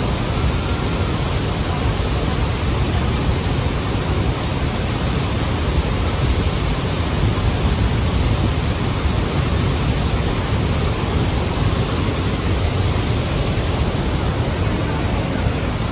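Steady, deep rushing roar of Niagara Falls and the churning water at its base.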